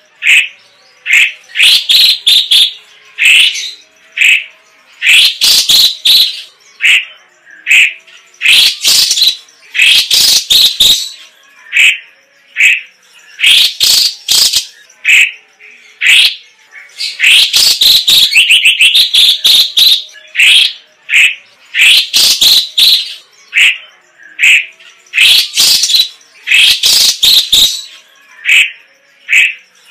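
Orange-bellied leafbird (cucak cungkok) singing loudly in sharp, rapid-fire bursts of high notes, one phrase every second or two with short gaps between. A longer unbroken run of quick notes comes a little past the middle.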